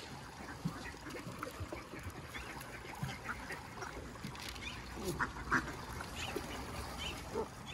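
Faint, scattered duck calls: a few short calls, the clearest around three seconds and about five seconds in.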